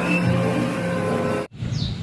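Engine-like vehicle sound, with a pitch that slowly rises, cuts off suddenly about one and a half seconds in, leaving a faint low rumble.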